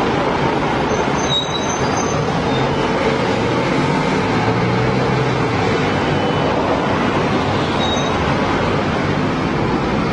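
Road traffic: a steady, loud rumble of cars and motorbikes passing, with a few faint, brief high squeaks about a second in and again near the end.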